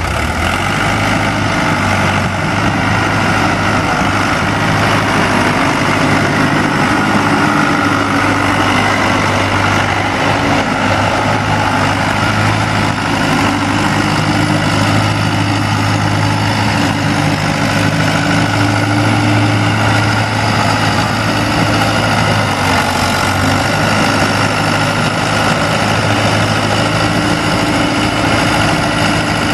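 Cummins four-cylinder diesel engine of a Versatile 276 II tractor running steadily.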